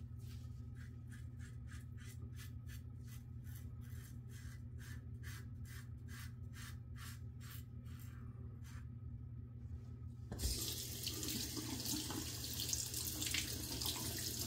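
Double-edge safety razor (a Yates Winning) scraping through lathered neck stubble in quick short strokes, about three a second. About ten seconds in, a tap is turned on and water runs steadily into the sink.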